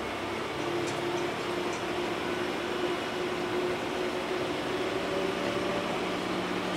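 Train running slowly, heard from inside near the front: a steady hum with a held tone and a second tone that rises slightly in pitch in the second half, with a few faint clicks about a second in.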